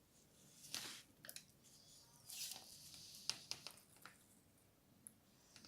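Near silence with a few faint clicks and a brief soft rustle of small objects being handled.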